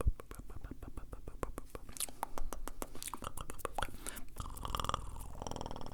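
Fast, wet mouth sounds close to the microphone: rapid tongue and lip clicks and smacks, several a second. Near the end a short buzzy, hummed or whispered vocal sound joins them.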